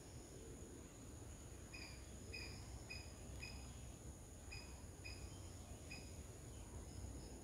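Steady high-pitched drone of insects in garden vegetation, with a run of about seven short chirps, roughly two a second, from about two seconds in until about six seconds in.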